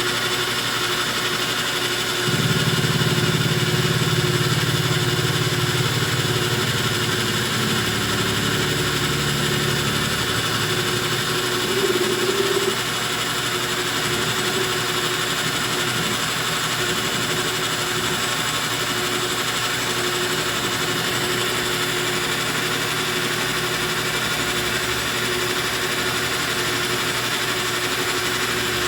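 Metal lathe running with a steady machine whine while taking a milling pass across the face of a copper bolt. It grows louder and heavier for several seconds about two seconds in.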